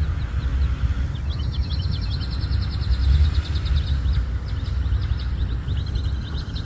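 A songbird singing two long trills of quick repeated high notes, the second starting near the end, over a steady low rumble.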